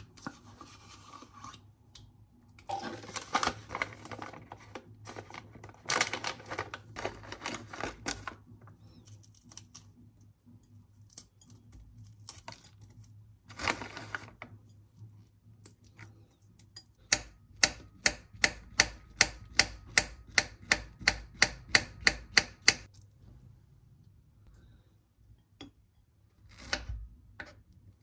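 Food-prep handling sounds: a snack packet crinkling and tearing. In the second half, a run of about fifteen evenly spaced knife strokes on a wooden cutting board, two or three a second.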